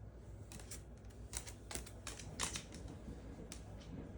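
Irregular light clicks and taps, about one or two a second, over a low steady hum.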